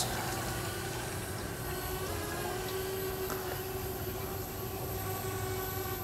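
Parrot Bebop quadcopter's four electric motors and propellers whining steadily in flight, a hum of several stacked tones whose pitch steps up slightly about two seconds in.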